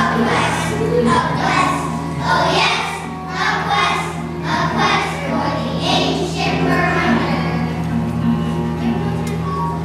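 A group of children singing together with instrumental accompaniment. The voices thin out over the last couple of seconds while the accompaniment carries on.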